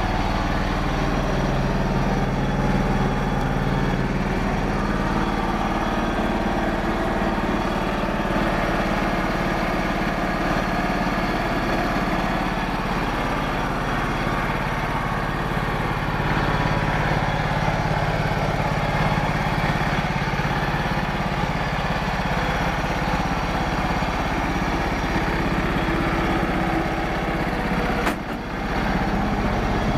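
John Deere 170 lawn tractor's small petrol engine running steadily at idle while the tractor stands still.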